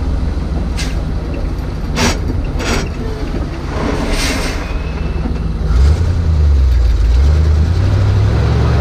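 1969 Chevrolet dump truck's 427 big-block gas engine running under way on a gravel road, with a few sharp knocks in the first three seconds. About six seconds in, the engine revs climb and it gets louder.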